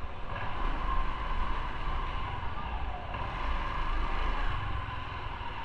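Motorcycle engine running at low speed, a steady low rumble under road and wind noise.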